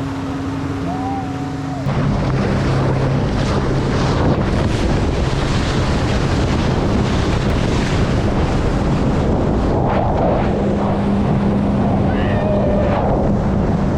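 Motorboat engine running under way, with water rushing past the hull and wind buffeting the microphone. It gets louder about two seconds in and then holds steady.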